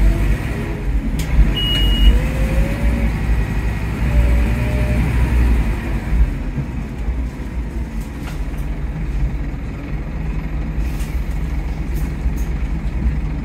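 Scania K230UB OmniLink bus under way, heard from inside the saloon: its engine and ZF Ecomat automatic gearbox pulling along, with a whine that rises in pitch several times in the first five seconds. The drive eases and grows quieter after about six seconds. A short high beep sounds about two seconds in.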